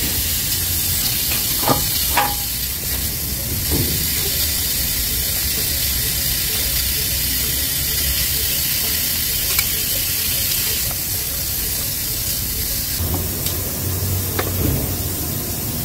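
Hot-air heat gun running, a steady hiss of blowing air over a low hum, with a few light taps as the wire-mesh screen is handled against the plastic bumper.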